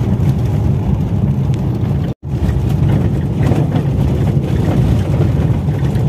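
Steady low rumble inside a car driving on a gravel road: tyre and engine noise, which cuts out completely for a split second about two seconds in.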